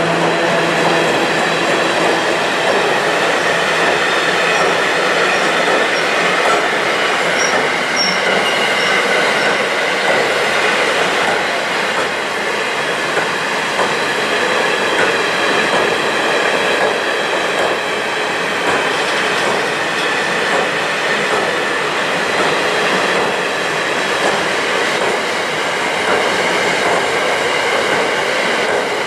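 Freight train of loaded two-tier car-carrier wagons rolling past at steady speed, a continuous dense wheel-on-rail noise with a faint high squeal from the wheels. A fainter low hum fades out about a second in.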